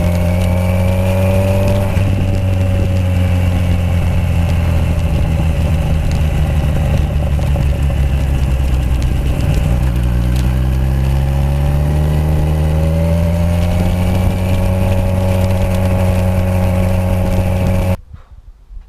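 Kawasaki Z1000 inline-four motorcycle engine running through aftermarket exhausts while being ridden. Its pitch rises as it accelerates about ten seconds in, and the sound cuts off abruptly near the end.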